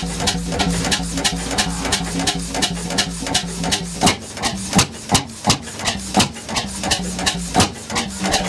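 1910 Cooper-Bessemer 35 HP single-cylinder two-stroke stationary engine running, a regular train of sharp knocks, a few each second, over a low hum. From about halfway the knocks grow louder and further apart.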